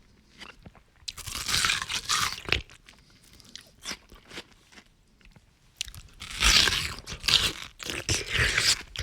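A person biting and chewing juicy watermelon, with crunchy, wet bites. There are two loud spells of crunching, one about a second in and a longer one from about six seconds in, with quieter chewing between them.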